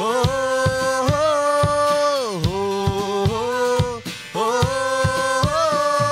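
Nepali Christian worship song played live: a voice holds long sung notes that slide down at the end of each of two phrases, over a steady drum beat with guitar.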